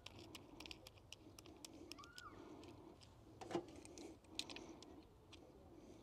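Near silence with faint scattered clicks of a small brass fitting being handled and threaded on a valve core removal tool, two a little louder around the middle, and a faint bird call about two seconds in.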